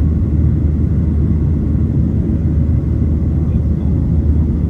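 Steady low rumble of an airplane's engines, unchanging in level.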